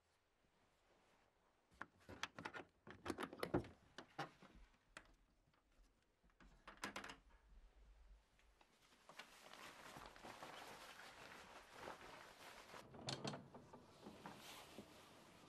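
Faint clicks and knocks of a window being worked from outside, then a soft rustling hiss. More knocks come near the end as the casement swings open.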